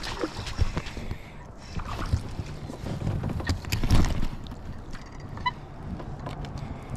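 A small hooked smallmouth bass splashing at the surface, then knocks and rattles as it is swung aboard a kayak and handled; the loudest knock comes about four seconds in.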